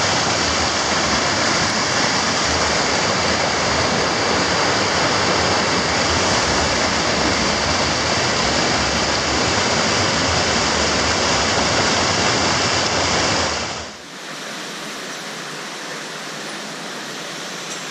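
Steady rushing water of a mountain torrent's cascades. About fourteen seconds in it turns abruptly quieter and thinner.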